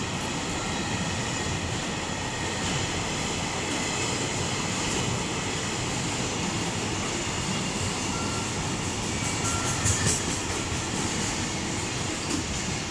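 Freight train's container wagons rolling past at speed: a steady loud rumble and rattle of wheels on rail, with a cluster of sharper clacks about ten seconds in.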